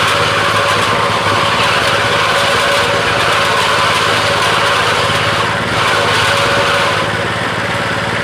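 Motorised peanut picking machine running steadily, its small motor or engine driving the stripping mechanism.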